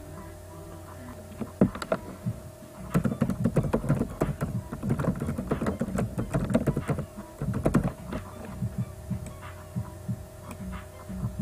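Typing on a computer keyboard: one click about a second and a half in, then a fast run of key clicks for about five seconds that thins out near the end, over a steady hum.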